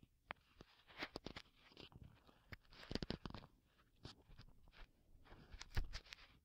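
Ear pick scraping and scratching inside an ear, close-up on a binaural recording: irregular clusters of crackly scratches and clicks, densest about three seconds in, with the sharpest one near the end.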